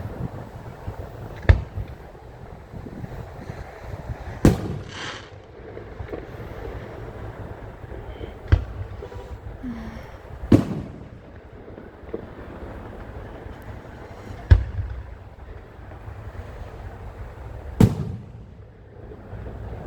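Aerial fireworks bursting: about six separate bangs a few seconds apart, one followed by a brief crackle, over a steady low background rumble.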